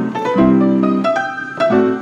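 Player piano playing a paper music roll: a lively tune in steady rhythm, with bass notes and chords alternating under a higher melody line.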